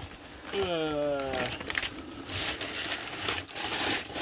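Cardboard box and brown packing paper rustling and scraping as a shipping box is unpacked by hand. About half a second in, a man gives a short wordless hum that falls in pitch.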